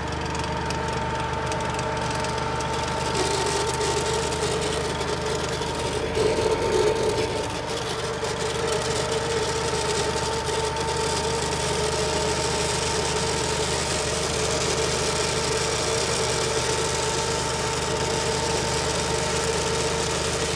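Massey Ferguson compact tractor's diesel engine running steadily, driving the sprayer pump through the PTO, with a steady mechanical whine over the engine note. A brief louder surge about six seconds in.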